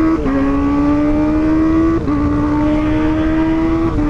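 Kawasaki ZX-25RR's inline-four engine breathing through a Pro Liner aftermarket exhaust, pulling hard under acceleration: the pitch climbs steadily and drops sharply three times, about every two seconds, as it shifts up through the gears, with wind rush underneath.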